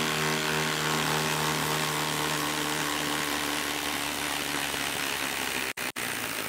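Milwaukee M18 Fuel 2853-20 impact driver, fitted with a half-inch anvil, hammering a 5/8 by 8-inch lag bolt into a wooden stump under heavy load, a continuous rapid impacting that stops for an instant twice near the end.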